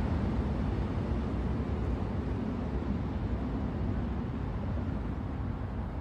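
Steady low rumble of a moving train, growing gradually quieter.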